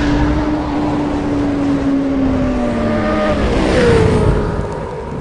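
Engine running at high revs. Its pitch sags slowly, then jumps higher about three and a half seconds in and falls away again, like a racing vehicle going by.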